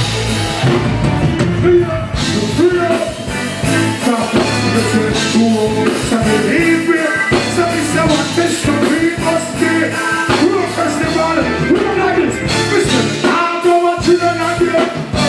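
Live reggae band playing a song's intro, with a voice singing over it.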